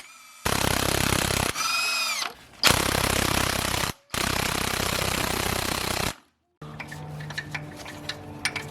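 An impact wrench hammering in three bursts, each one to two seconds long, undoing the engine's sump bolts. A quieter steady low hum follows near the end.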